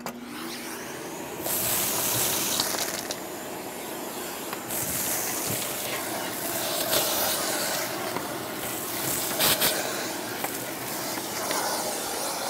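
Festool dust extractor running, its hose and crevice nozzle sucking ash out of a kamado grill's ash compartment: a steady suction hiss that swells louder several times as the nozzle moves through the ash, with a few clicks of debris near the end.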